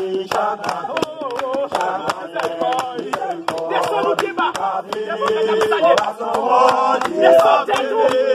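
A group of men and women singing a hymn together, with steady rhythmic handclaps keeping the beat.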